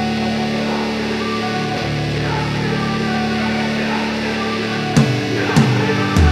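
Rock background music with sustained electric guitar chords; drum hits and a heavy bass come in about five seconds in.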